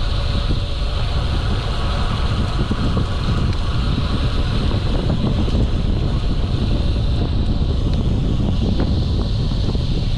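Wind buffeting the microphone during a road-bike ride: a loud, steady low rumble with a hiss above it.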